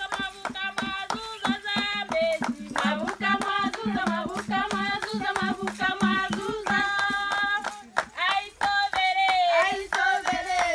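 A group of women singing together unaccompanied, keeping time with steady hand claps several times a second.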